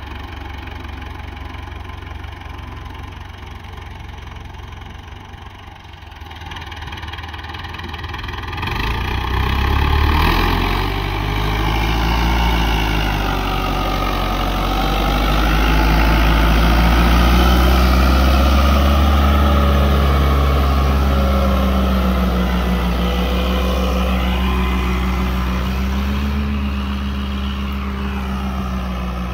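Fiat 640 DT tractor's diesel engine working under load while pulling a reversible plough through the soil. It grows louder about a third of the way in and is loudest around the middle. Its pitch dips and rises a few times as the engine speed changes.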